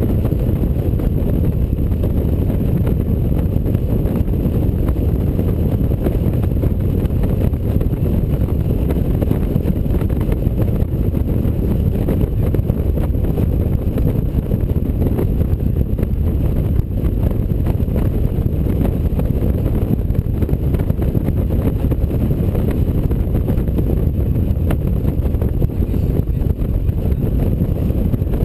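Touring motorcycle cruising at a steady speed, heard from its own mounted camera as a constant low rumble of wind and road noise with no change in engine pitch.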